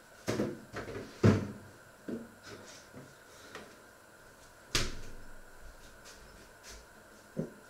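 A series of knocks and thumps, like cupboard doors and drawers shutting, with a heavy thump about a second in and a sharp knock near five seconds.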